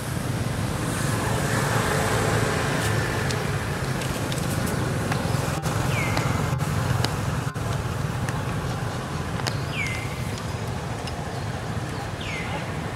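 Road traffic: a steady rumble, louder in the first half. A few short high chirps fall in pitch about six, ten and twelve seconds in.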